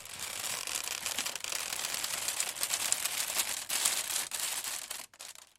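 Wicker under stress: a dense, steady run of crackling and crunching from the woven strands, thinning to a few last crackles near the end.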